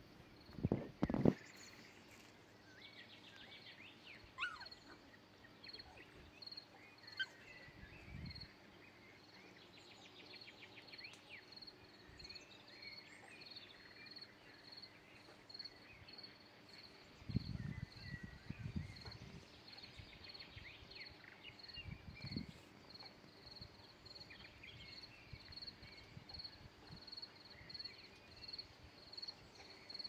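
Faint outdoor forest ambience. Birds chirp now and then over a steady high-pitched pulsing call, repeating a bit more than once a second. A few brief low rumbles of wind on the microphone come in near the start and in the middle.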